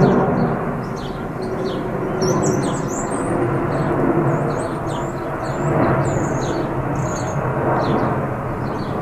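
Airbus Beluga XL's twin turbofan jet engines giving a steady rumble that swells and eases as it passes overhead in a banking turn. Small birds chirp throughout.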